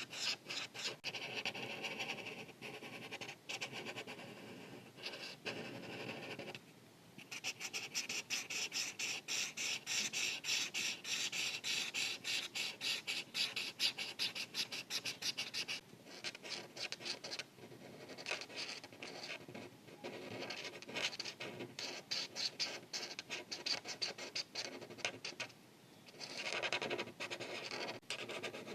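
Art marker tip scratching across paper in rapid back-and-forth strokes as an area is filled in, pausing briefly about seven seconds in and again near the end.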